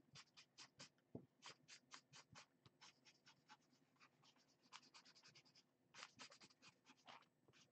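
Washable felt-tip marker drawn across a paper coffee filter in a quick run of short strokes, about four or five a second, faint.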